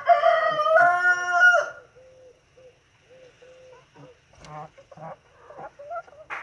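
A rooster crowing once, loud, for about two seconds in two connected parts; then faint scattered clicks and rustles.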